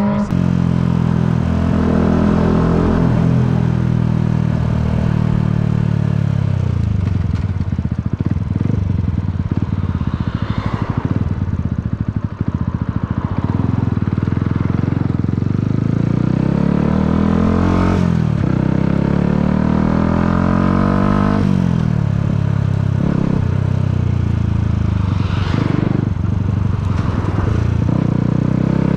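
Yamaha MT-125's single-cylinder four-stroke engine heard from on board, running hard under load. Its pitch climbs and drops several times as the revs rise and fall.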